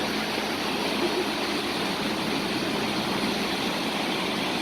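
Steady rushing of fast-flowing floodwater, an even roar that holds at one level throughout.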